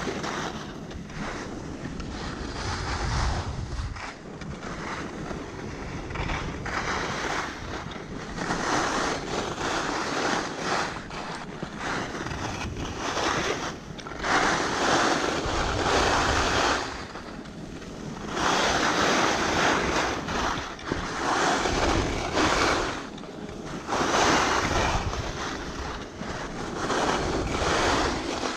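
Skis sliding and scraping over groomed snow in a run of turns, a rushing hiss that swells and fades every few seconds, mixed with wind on the microphone.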